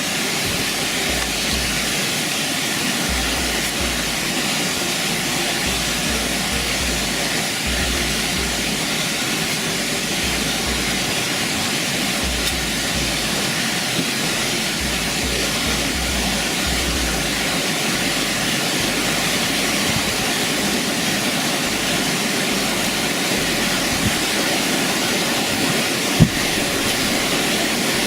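Waterfall rushing: a steady, even wash of noise, with a low rumble coming and going underneath and a single sharp click near the end.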